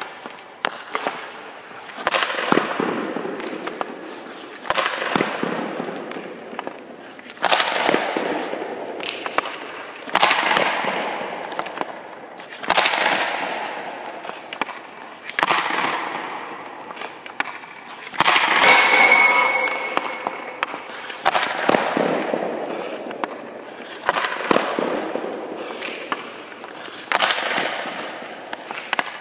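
Ice hockey shots fired at a goalie: a sharp crack of stick on puck, with the puck hitting the goalie, roughly every two and a half seconds, about a dozen in all. Each crack rings out in the echo of the indoor rink.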